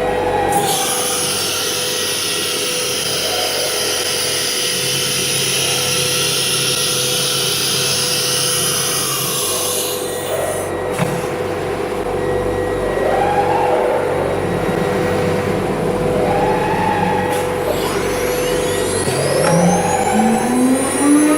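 CNC router with an HSD auto tool-change spindle: a steady machine whine with a dense high cutting hiss for about the first ten seconds, which then stops. Near the end a whine rises steadily in pitch as the spindle spins up.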